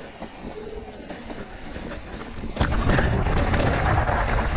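Mountain bike rolling down a rough dirt-and-rock trail: tyres rumbling over the ground and the bike rattling, getting clearly louder about two and a half seconds in.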